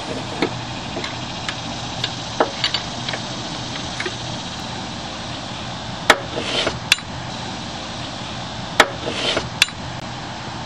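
Combination wrench on a drive-belt tensioner's lock nut: a string of sharp metal clinks, some followed by a short scrape, as the nut is worked loose.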